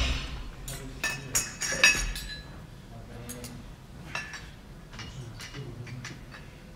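Scattered metallic clinks and clanks of gym equipment, several ringing briefly, with a louder knock right at the start.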